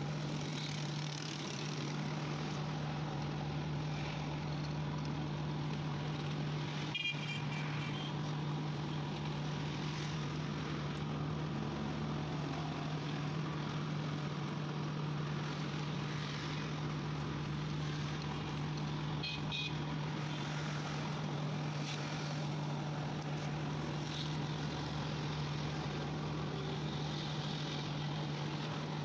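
Steady low hum over street traffic noise, with brief vehicle horn toots about seven seconds in and again near twenty seconds in.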